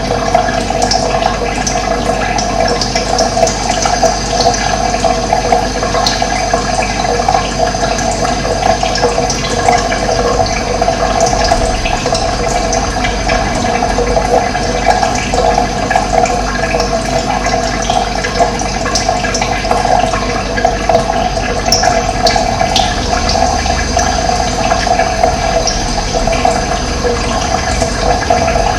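Steady running water, with a few brief high bird chirps over it.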